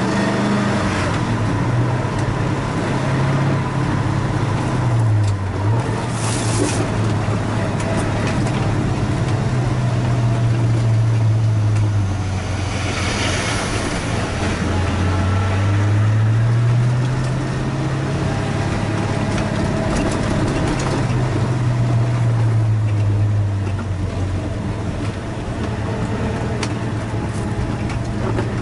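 1967 Ford Fairlane GT's V8 engine and exhaust under way, its note dropping about five seconds in, climbing again around sixteen seconds and falling back a few seconds later as the revs change, over steady road noise. A short rushing hiss passes midway.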